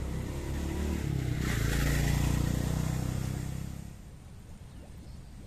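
A motor vehicle's engine passing close by: it grows louder to a peak about two seconds in, then fades away by about four seconds.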